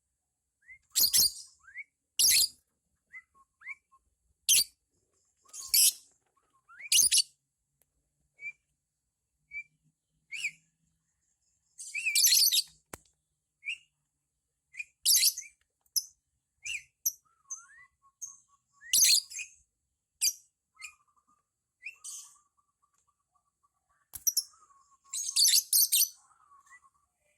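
Lovebirds giving short, loud, shrill screeching calls every one to three seconds, with small rising chirps between them and a soft, fast twittering in the second half.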